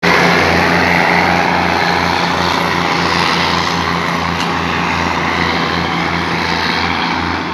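A diesel train running past close by, with a loud, steady engine hum and noise and a regular low beat.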